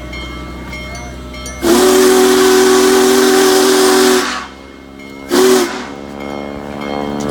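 Union Pacific Big Boy 4014 steam locomotive's whistle blowing: one long blast of about two and a half seconds with a rush of steam hiss, then a short toot about a second later.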